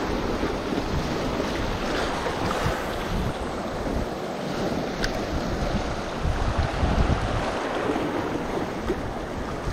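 Small waves washing over rocks at the shoreline, with wind buffeting the microphone in uneven gusts.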